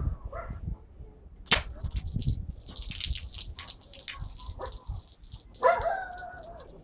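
A SPAS-12-style BB shotgun fires once, a sharp crack about a second and a half in, followed by a few seconds of high hiss. A short pitched call comes near the end.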